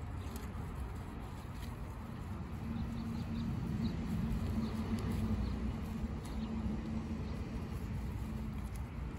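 Goats grazing: leaves rustling and being torn off and chewed in small crisp clicks, over a steady deep hum that grows louder in the middle.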